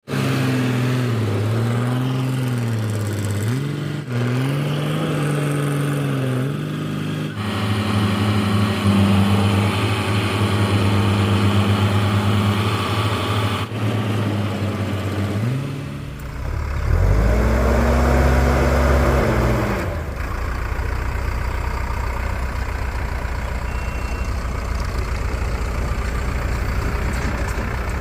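Heavy vehicle's engine revving up and down, held at high revs for several seconds, dipping and revving once more around two-thirds of the way in, then settling into a lower steady rumble.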